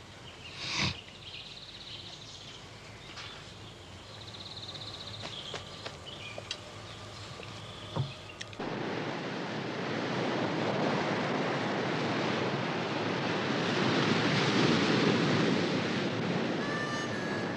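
Ocean surf on a beach: a steady rush of breaking waves that sets in suddenly about halfway through and grows a little louder. Before it there is only quiet outdoor background with a few faint high chirps. Music starts right at the end.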